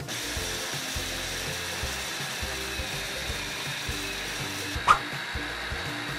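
Small electric coffee grinder running steadily, its blade grinding crisp oven-dried red bell pepper strips into powder. A brief high chirp sounds about five seconds in.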